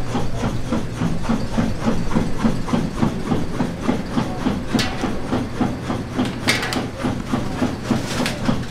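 A machine running with a fast, even rhythm of about four beats a second over a steady hum. Three short, sharp noises stand out about halfway through and near the end.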